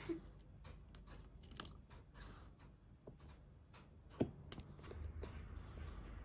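Utility knife blade cutting through the rubber tread lugs at the edge of a Dainite outsole, trimming a flat stitch track for the sole stitching: faint scraping and small clicks, with a sharper click about four seconds in.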